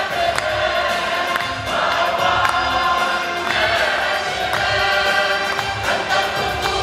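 Church choir singing an Arabic Christmas hymn, with held notes that change every second or two.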